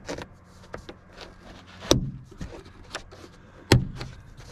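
Plastic pry tool working at the plastic sun visor retainer clip in a 2005 Honda Accord's headliner, with two sharp clicks nearly two seconds apart and a few fainter ticks between.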